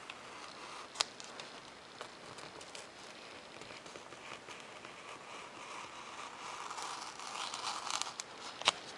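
Hobby knife blade cutting through paper plans and 3 mm Depron foam along the outline, a quiet scratching that grows louder near the end, with a sharp click about a second in and another just before the end.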